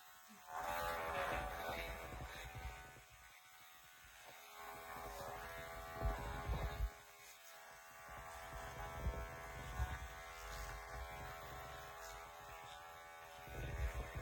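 Electric pet grooming clippers buzzing steadily while trimming the hair on a Shih Tzu puppy's feet, growing louder and softer as the blade moves, with a few low bumps from handling.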